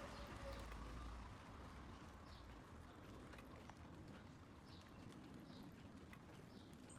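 Near silence: faint outdoor background with a few faint, short high chirps and light ticks scattered through it.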